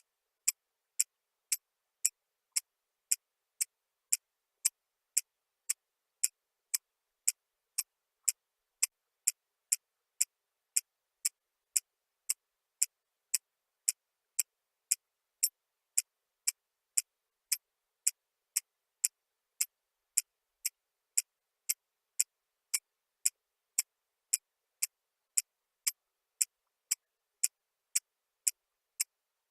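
Sharp, even ticking, about two ticks a second, with silence between the ticks.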